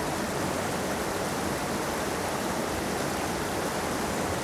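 Steady rush of water from a fast-flowing mountain headwater stream.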